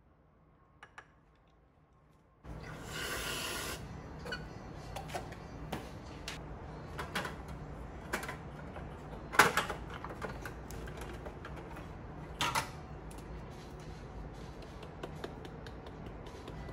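A short spray-like hiss about two and a half seconds in, then scattered light clicks and knocks of a glass and kitchen items handled on a countertop, the loudest knock near the middle.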